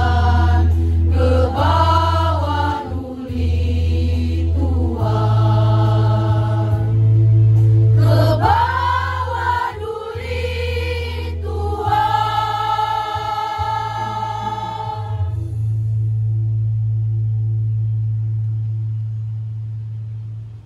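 Women's choir singing the closing phrases of a slow song in Indonesian over a low, sustained accompaniment that changes chord every few seconds. The voices end on a long held chord about fifteen seconds in, and the low accompaniment sounds on alone until it cuts off at the very end.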